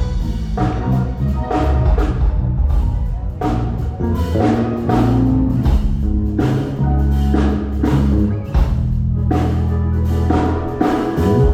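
Live band jamming: an electric bass plays long held low notes under drum kit hits.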